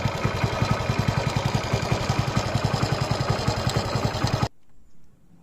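Hero Splendor motorcycle's single-cylinder engine idling with a fast, even beat, about ten pulses a second, and a rattle that the uploader puts down to a bad timing chain. It cuts off abruptly near the end.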